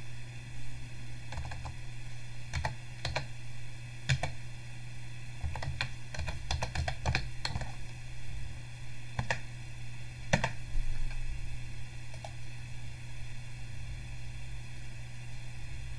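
Computer keyboard typing: irregular keystrokes that thin out after about ten seconds, over a steady low hum.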